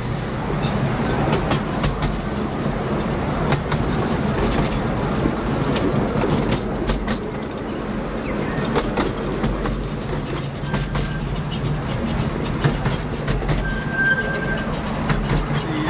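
Open passenger carriages of a 10¼ inch gauge miniature railway running along the track: a steady rumble with irregular clicks and knocks from the wheels. Brief thin squeals about eleven and fourteen seconds in, from wheel flanges as the train rounds a curve.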